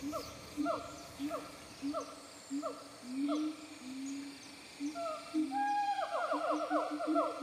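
A series of short hooting animal calls, about two a second, some sliding down in pitch, with a faster run of overlapping calls near the end.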